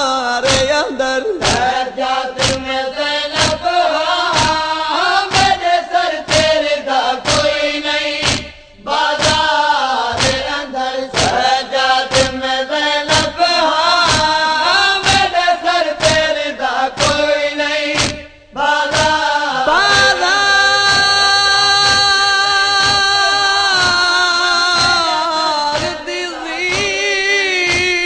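Men's voices chanting a nauha, a Shia lament, in unison to a steady beat of chest-striking (matam), about one and a half strikes a second. The chant breaks off briefly twice, and near the end it moves into long held notes.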